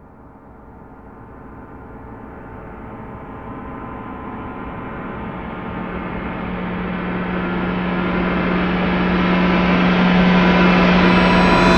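Dramatic riser sound effect: a gong-like metallic swell growing steadily louder and brighter, with a steady low tone underneath.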